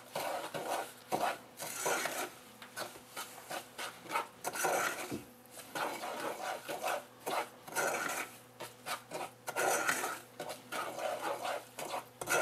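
Wooden spoon stirring and scraping a grainy mix of melted butter and sugar around a nonstick saucepan, in quick irregular rasping strokes.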